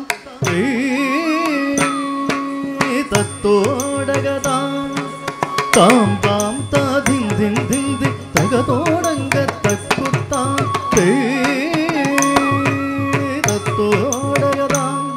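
Carnatic music for Bharatanatyam dance: a melody that bends and wavers around its notes over held tones, with frequent sharp drum strokes.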